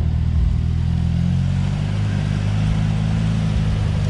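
Jeep Wrangler TJ engine running at low, steady revs while crawling over rocks, its pitch shifting slightly up about a second in.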